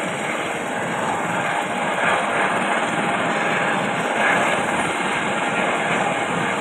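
Airbus H130 helicopter running on the ground with its main rotor turning: a steady turbine-and-rotor rushing sound that grows slightly louder toward the end.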